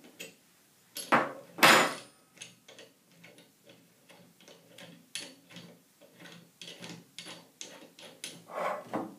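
A steel wrench clanks twice against the nut of a removable friction rock bolt anchor and comes off, then light metallic ticks, about three a second, as the nut is spun loose by hand, with a louder clatter near the end.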